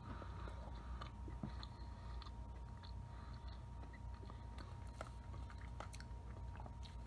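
A person chewing a mouthful of microwave cake topped with Oreo cookie pieces: soft, scattered mouth clicks and smacks, with a faint steady hum underneath.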